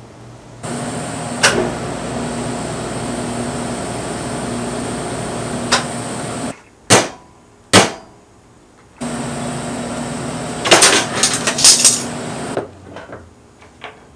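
Electric welding arc buzzing steadily for about six seconds while tabs are welded onto the table legs, then two sharp hammer strikes on the metal, then the arc again for about three and a half seconds, crackling in its second half.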